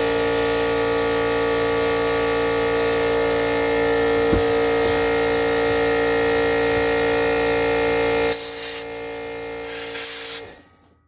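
Air compressor running loudly and steadily, then cutting out about eight seconds in. Near the end, two short hisses of compressed air follow as parts are blown dry.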